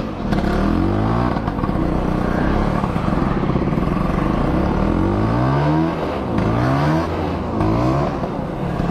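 Two-stroke motorcycle engine under way, its pitch climbing steeply and falling back about five times as it revs up through the gears. The rider takes the hesitation for fuel arriving late.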